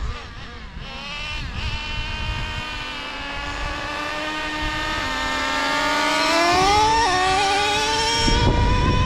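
Nitro RC truck's small two-stroke glow engine (Traxxas TRX 3.3) running under throttle, its high buzzing note climbing in pitch and getting louder, with a short dip in pitch about seven seconds in before it climbs again. Wind rumbles on the microphone near the end.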